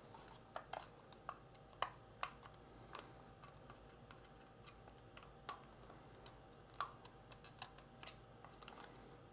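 Plastic spacers being snapped by hand onto the plastic housing of a battery disconnect switch: faint, irregular light clicks and taps as they latch on.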